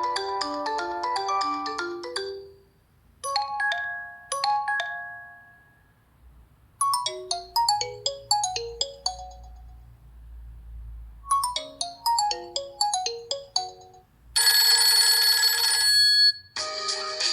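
Stock Nokia 3 (TA-1032) ringtones and alert tones played one after another, each a short electronic melody separated by brief silences. A melody ends about two seconds in, followed by a short two-note tone and two quick runs of notes. Near the end comes a denser tone lasting about two seconds, and then a new melody begins.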